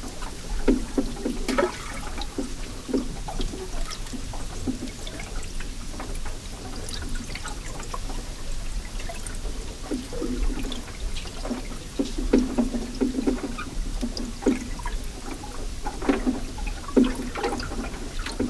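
Underwater sound of fast river current near a weir, heard through a hydrophone: a steady rush of flowing water with irregular bubbling gurgles and small knocks throughout.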